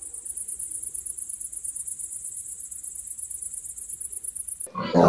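Night insects, crickets, chirping in a steady high-pitched rapid pulse. Near the end the chirping cuts off and a sudden loud animal call begins.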